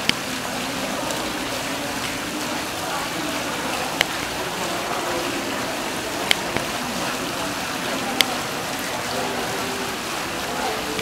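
Indoor fountain water pouring steadily over a ledge into its pool, a constant splashing rush, with a few sharp clicks.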